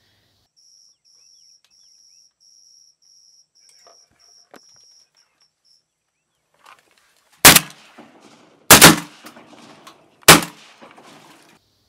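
Shotguns firing at ducks coming in over decoys: four sharp blasts within about three seconds, two of them almost together, each trailing off in a short echo.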